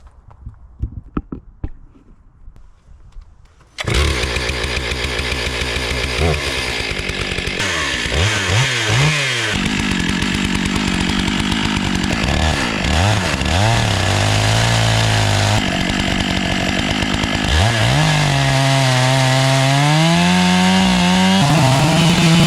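Stihl MS 661 two-stroke chainsaw comes in suddenly about four seconds in and cuts into wood. Its engine pitch dips and rises repeatedly under load, then holds higher and steadier near the end. A few light knocks are heard before it.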